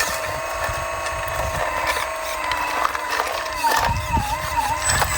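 Model hydraulic excavator's pump and motor whining steadily, its pitch dipping and wavering near the end as the arm works under load, with scattered clicks and knocks.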